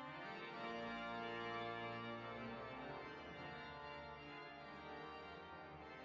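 Pipe organ playing slow, sustained chords, a new passage beginning right as the previous one fades.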